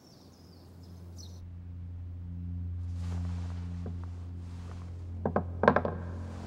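Background score: a sustained low drone that swells over the first few seconds. About five seconds in comes a quick run of sharp clicks, game pieces set down on a board.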